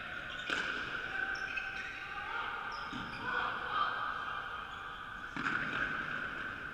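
Echoing sports-hall ambience of a team game in progress: distant players' voices and footfalls on the wooden court, with two louder sudden bursts about half a second and five and a half seconds in.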